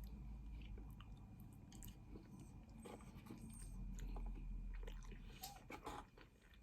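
Quiet close-up chewing of a mouthful of egg noodles, with small wet clicks and smacks of the mouth.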